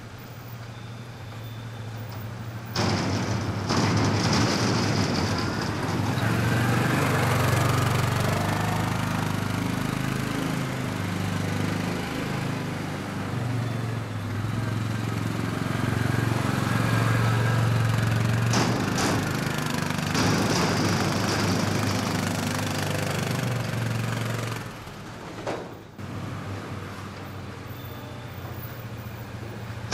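Utility ATV engine running as it is ridden, its low note rising and falling with the throttle; it is quieter for the first few seconds and again near the end.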